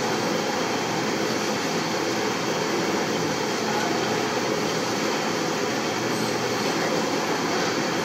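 Steady, unbroken rushing drone of workshop machinery, with no distinct knocks or strikes.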